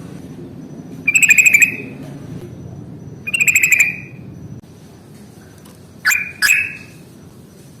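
Yellow-vented bulbul (trucukan) singing two rapid chattering trills of about half a second each, the 'ropel' style of song. Two short sharp call notes follow near the end.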